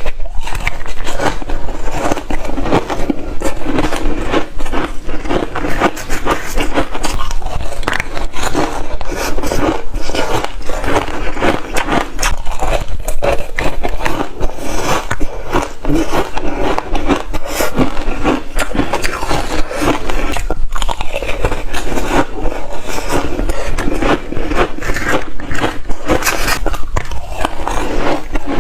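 Close-miked biting and chewing of hard ice: a continuous, dense crunching and crackling, bite after bite.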